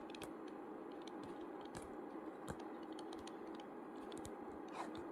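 Faint, scattered light clicks and taps over a steady low hiss, with a slightly stronger tap near the end.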